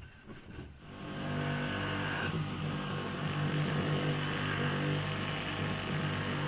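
Corded electric rotary tool running steadily, spinning a felt polishing wheel against wood. The motor hum comes up about a second in and then holds at an even speed.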